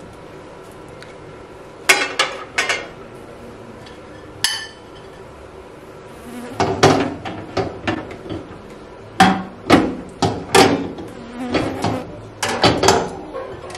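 Glass microwave turntable plate and its plastic roller ring clinking and knocking against the microwave cavity as they are fitted in: three sharp clicks in the first few seconds, then a run of knocks and rattles from about six seconds in.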